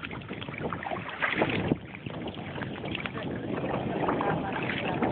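Kayak paddling on open water: paddle strokes and water splashing against the hull, with wind buffeting a phone microphone sealed in a ziplock bag. A louder burst of splashing and rustling comes about a second and a half in.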